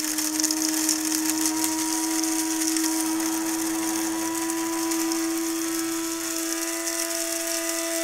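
Small electric motor of a coffee appliance running steadily: an even hum with a strong high hiss over it.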